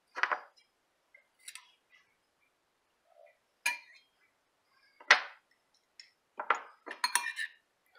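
Metal garlic press and knife clinking and tapping against a ceramic bowl as garlic is pressed and scraped off into the salsa: a handful of separate knocks, with a quicker cluster near the end.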